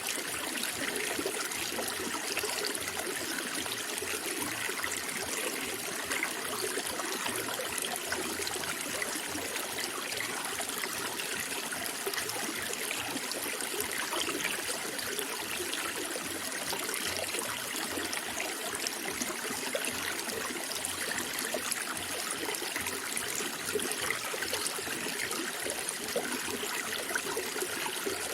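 Running water, a steady trickling flow.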